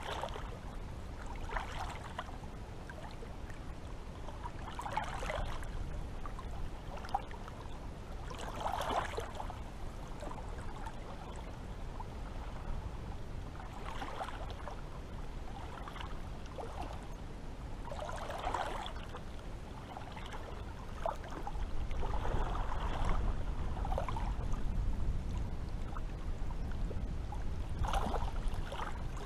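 Small sea waves lapping and sloshing, a wash every few seconds, over a low steady rumble that grows louder about two-thirds of the way through.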